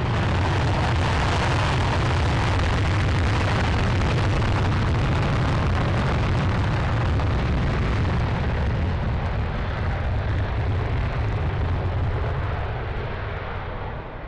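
USAF F-35A's single Pratt & Whitney F135 jet engine in full afterburner on a takeoff roll. The noise is loud, rough and steady with a deep rumble, swells in sharply at the start and fades away over the last couple of seconds.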